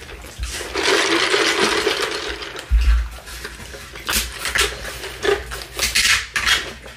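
Table sounds from a meal. Foam drink cups are handled and a drink is sipped through a straw: a noisy stretch of about two seconds, then a run of sharp clicks and clinks in the second half.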